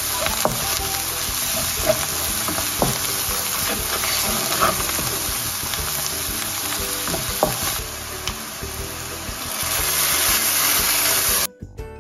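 Chopped onions and spices frying in oil in a nonstick wok, a steady sizzle, with a wooden spatula stirring and scraping through them and now and then knocking against the pan. The sizzle cuts off suddenly near the end.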